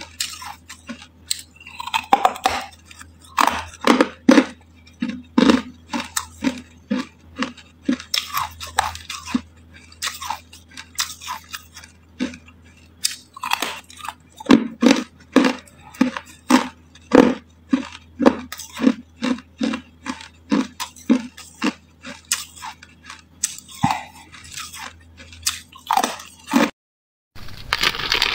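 Close-up crunching and chewing of hard ice. Bites and cracks come in quick runs, at times about two a second, with short pauses between them. There is a brief gap near the end before the crunching resumes.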